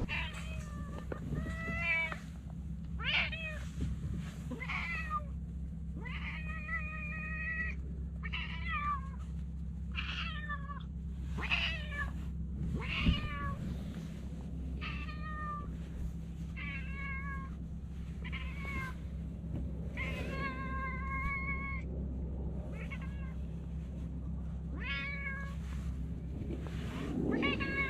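Domestic cat meowing over and over, a string of short and drawn-out meows every second or two, over a steady low hum.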